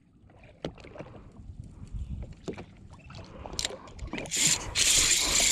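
Scattered clicks and knocks of a spinning rod and reel being handled, then, about four seconds in, a sudden loud steady hiss with a high whine as a fish strikes the lure and line runs off the reel's drag.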